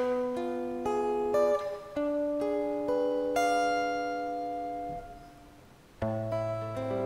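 Silent guitar fingerpicked, playing a melody in single plucked notes that ring on. A held note fades away about five seconds in, then the picking starts again with a low bass note a second later.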